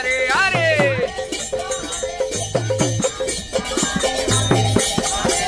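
Kirtan music. A singing voice glides in pitch for about the first second, then low drum strokes and rattling hand percussion keep a steady rhythm.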